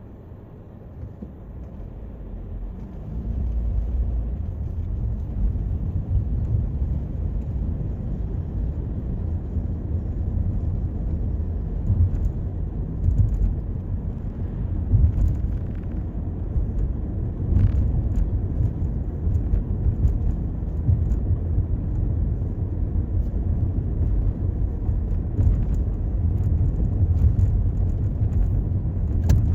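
Toyota Corolla driving: low road and engine rumble that builds over the first few seconds as the car picks up speed, then runs steadily.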